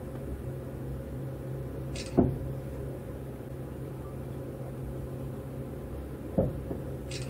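Interior of a Tobu 200-series Ryomo train rolling slowly: a steady low hum from the car, broken by two sharp clunks about four seconds apart, each close to a short hiss.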